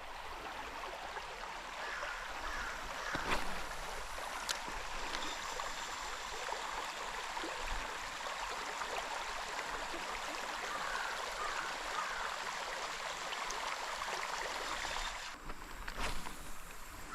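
Shallow creek water running over rocks, a steady rushing hiss, with a couple of faint clicks a little over three and four seconds in.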